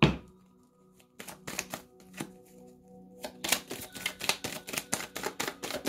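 A deck of tarot cards shuffled by hand: a sharp knock right at the start, then scattered card flicks that turn into a quick run of riffling clicks from about three seconds in.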